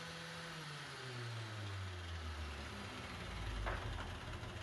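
Electric angle grinder with a wire wheel spinning down after switch-off, its steady hum sliding lower in pitch over a couple of seconds. A single click comes about three and a half seconds in, and the noise picks up again near the end.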